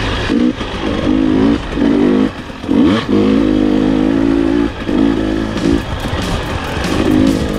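The 2020 KTM 300 XC-W TPI's two-stroke single-cylinder engine pulling in repeated bursts as the throttle is opened and closed on the trail, with a quick rising rev about three seconds in.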